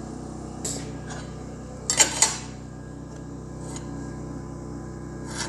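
A few short metallic clanks and clinks of steel being handled, the loudest a quick pair about two seconds in, over a steady low hum.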